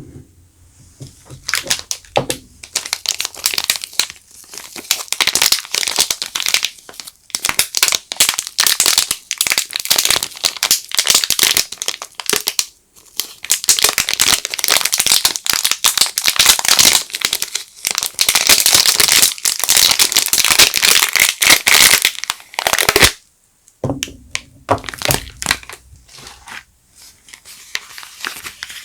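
Soap wrapping being crinkled and torn open by hand: a dense, crackling rustle. It breaks off briefly near the end, then goes on more quietly.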